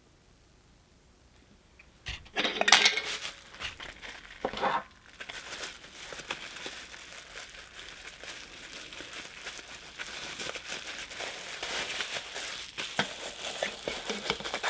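Plastic packaging crinkling as it is handled. It starts about two seconds in with two louder bursts, then runs on as steady crinkling.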